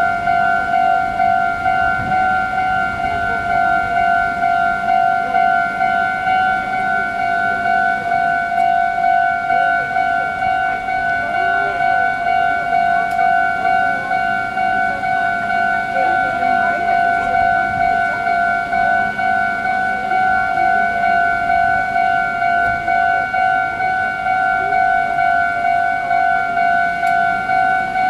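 Japanese railway level-crossing alarm bell ringing continuously, an even, rapidly repeating electronic ding.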